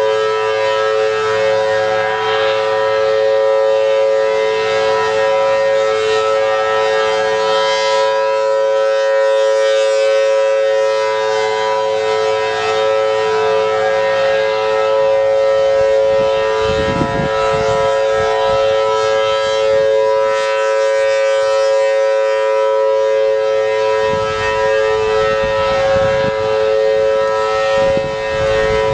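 Federal Signal Thunderbolt 1000T outdoor warning siren with a 4/5-port chopper, sounding a steady wail at an unchanging pitch, two tones held together as a chord, while its horn rotates. It is sounding its routine monthly test. Patches of low rumble come in about halfway through and again near the end.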